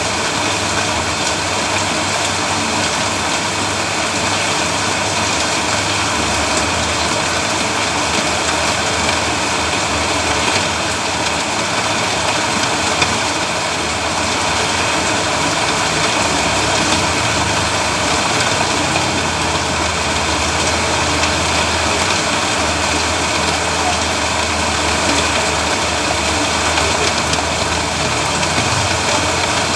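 Steady rain hissing evenly, with a low engine hum running underneath.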